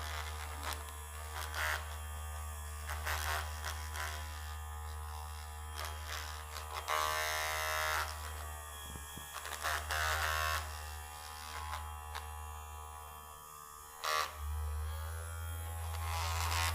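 Handheld electric vibrating massager buzzing steadily with a low hum. Its tone shifts as it is worked over the neck and head, with a few brief knocks. It drops away for a moment near the end and picks up again.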